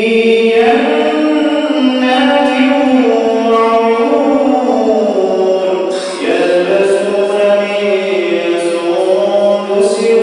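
An imam's unaccompanied melodious recitation: one man's voice chanting in long held notes that glide from pitch to pitch.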